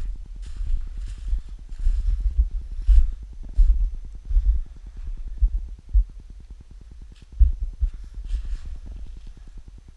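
GoPro Hero 4 Black Wi-Fi interference on the camera's own audio: a fast, even pulsing buzz, the 'helicopter noise'. It runs under irregular low thumps and rumbles.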